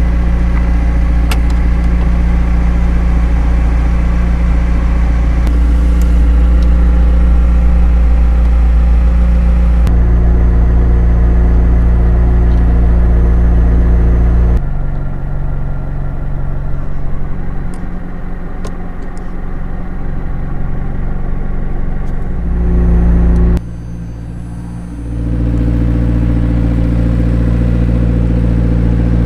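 McLaren 765LT's twin-turbo 4.0-litre V8 idling steadily, with no revving. The sound changes abruptly several times, dipping quieter in the middle and again a few seconds before the end, then coming back.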